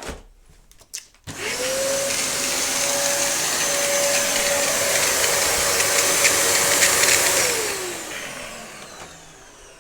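Dyson upright vacuum cleaner switched on with a click: its motor spins up quickly to a steady, high whine. It runs for about six seconds, then is switched off and the whine falls in pitch as the motor winds down.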